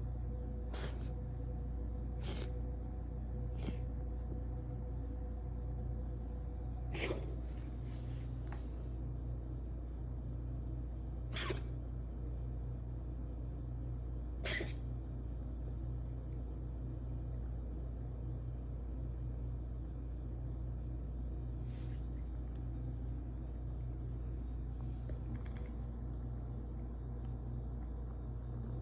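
Cat coughing and hacking in a handful of short, separate bursts spread through the stretch, a small cluster of them about seven seconds in, the sound of a cat trying to bring up a hairball. A steady low hum runs underneath.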